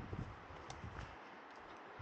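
Footsteps and rustling of a player moving through woodland undergrowth. There are low thuds early on, and a couple of faint sharp clicks about a second in.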